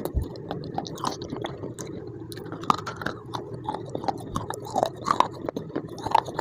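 Close-up crunching and chewing of something brittle and crunchy: many quick, irregular crisp cracks, several bites' worth, over a faint steady hum.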